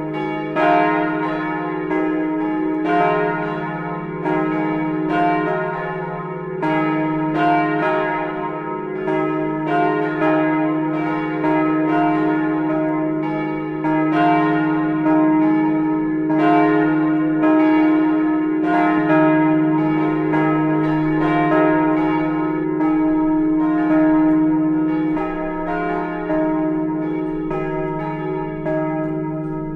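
Church bells of the Gedächtniskirche (Memorial Church) in Speyer ringing a partial peal: several swinging bells striking in a steady, overlapping stream, their hum tones sustained under the strikes.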